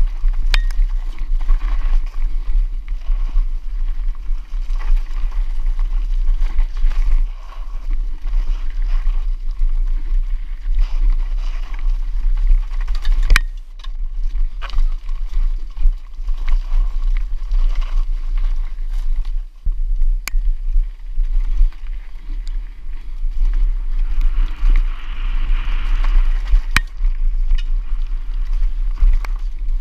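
A mountain bike rattling over rough trail on a fast downhill run, with wind rumbling on the microphone and a few sharp knocks along the way.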